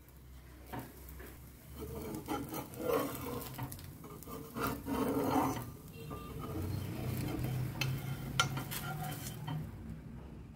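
Cookware handling on a cast-iron dosa tawa: a steel lid and utensils clinking and scraping against the pan in irregular strokes, over faint sizzling from the cooking dosa.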